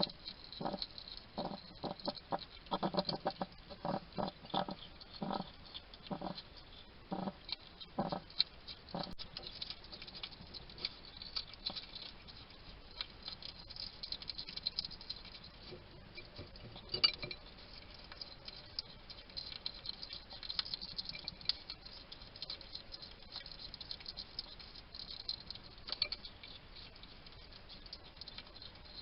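European hedgehog eating: a steady crackle of fast crunching and chewing clicks. Through the first nine seconds or so it also makes a run of short, low, separate huffing sounds, its 'chatting' while it eats.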